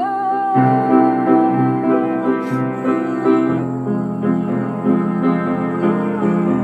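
Background music: an instrumental passage of a pop song with keyboard chords and a long held high note over the first two and a half seconds.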